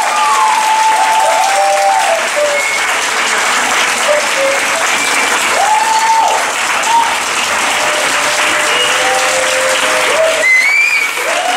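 Audience applauding steadily, with long calls and cheers from the crowd over the clapping.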